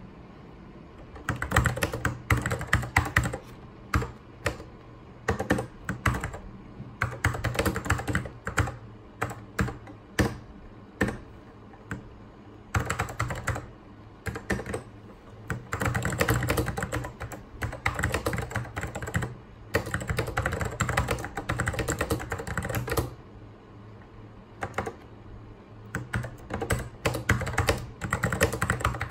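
Typing on a full-size mechanical Apple keyboard: quick runs of keystrokes broken by short pauses, starting about a second in, with a longer pause about three quarters of the way through.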